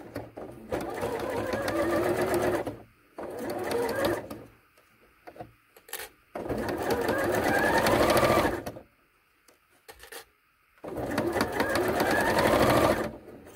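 Electric sewing machine with a zipper foot stitching a zipper seam in four short runs, each starting with a rising whine as the motor speeds up, and stopping in between with only a few small clicks.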